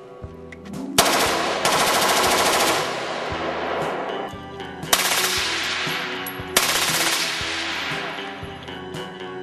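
Full-auto bursts from a SIG 552 select-fire rifle: a long burst about a second in, then two more starting near 5 and 6½ seconds, each trailing off in echo.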